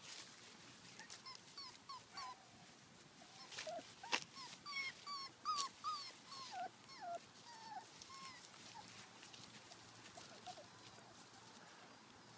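Brittany puppies yipping and whimpering in play: a run of short, high calls that fall in pitch, thickest in the middle, with a few sharp clicks, the loudest about four seconds in.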